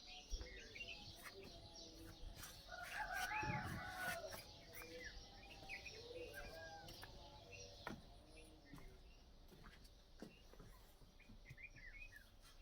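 Birds chirping and calling, faint, with a louder run of calls from about two and a half to four seconds in.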